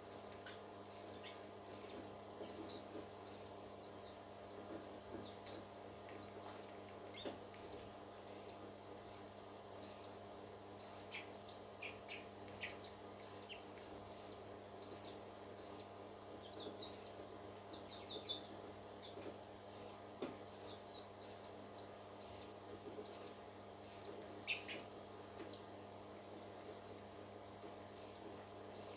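Newly hatched parrot chicks peeping: many short, faint, high-pitched chirps scattered throughout, over a steady electrical hum.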